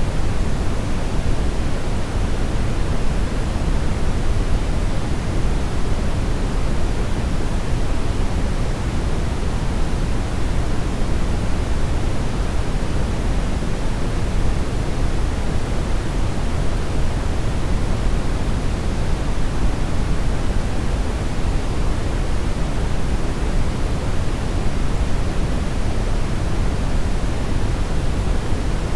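Steady brown noise: an even, deep rushing hiss, strongest in the bass and falling off toward the highs, with no change or events.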